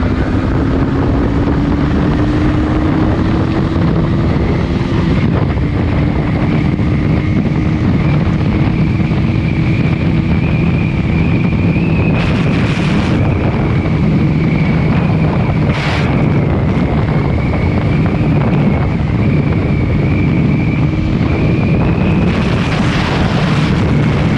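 Motorcycle ridden at a steady speed: heavy wind noise on the microphone over the engine's steady drone, with brief louder surges of rushing air a few times.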